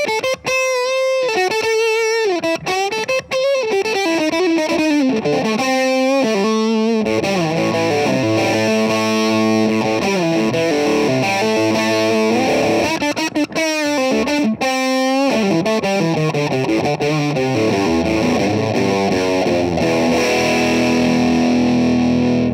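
Electric guitar played through a Royal Jelly pedal set midway between overdrive and fuzz, giving a dirty, fuzzy drive. It opens with a single-note lead line with string bends and vibrato, then moves to held, ringing chords, ending on a long sustained chord.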